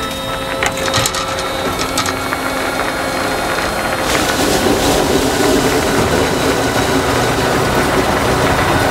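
Ice resurfacer running over the rink, its conditioner shaving and smoothing the ice with a steady grinding, scraping noise; a few sharp clicks in the first two seconds, and the noise grows louder about four seconds in.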